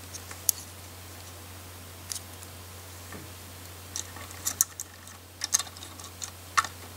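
Light plastic clicks and taps of a LEGO minifigure and bricks being handled as the figure is fitted into a small LEGO helicopter: a dozen or so scattered sharp clicks, several in quick pairs in the second half.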